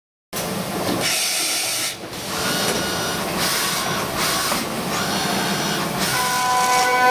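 CNC horizontal machining centre at work: a steady mechanical hiss of cutting and machine running that starts abruptly and shifts in character every second or so.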